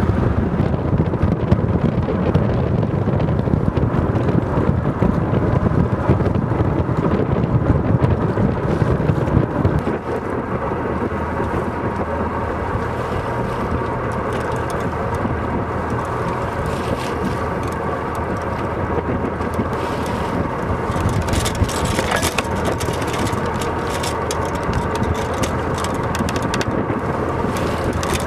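Wind buffeting the microphone aboard a sailboat under way, over the rush of water past the hull. The low rumble is heavier for the first ten seconds, then settles to a steadier, lighter noise.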